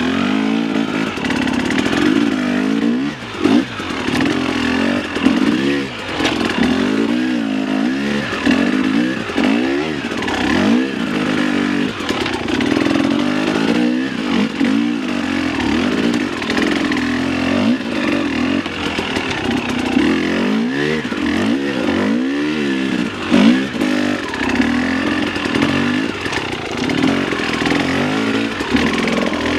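Dirt bike engine revving up and down over and over under load while climbing a rocky hill, the throttle worked in short bursts.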